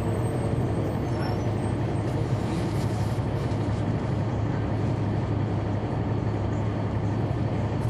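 Caterpillar C9 ACERT diesel engine of a 2004 Neoplan AN459 articulated bus running steadily, heard from the rear of the passenger cabin as a constant low hum.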